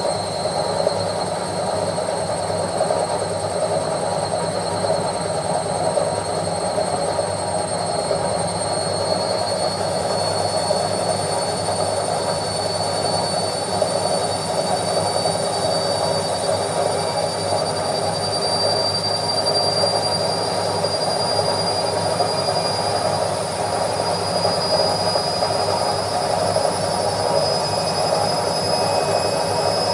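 Washing machine on its spin cycle: a steady whirring drum noise with a thin high whine that rises slowly in pitch.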